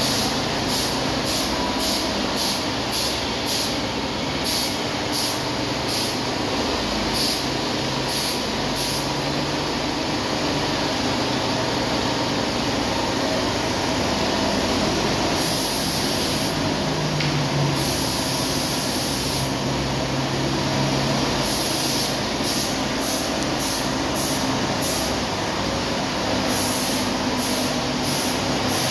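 Paint spray rig running steadily, its spray gun hissing in short bursts as the trigger is pulled again and again, with a few longer hisses of a second or two midway.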